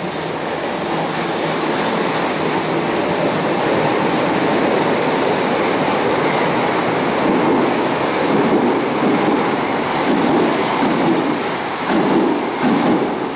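Berlin U-Bahn F-type train running through a station, a loud rumble that builds as it comes alongside. From about halfway it picks up a regular clatter of wheels over the rail joints, roughly two beats a second.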